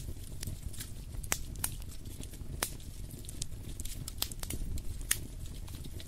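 Wood fire crackling in a fireplace: irregular sharp pops and snaps, several of them louder, over a steady low rumble.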